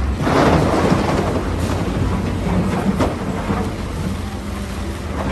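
Heavy truck engine running steadily with a low rumble. It cuts in abruptly, like an inserted sound effect.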